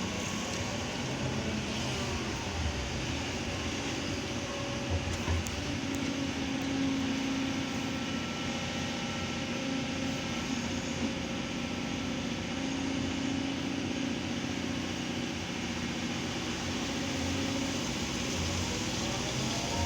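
Kobelco hydraulic excavator's diesel engine running steadily, its note swelling and easing slightly.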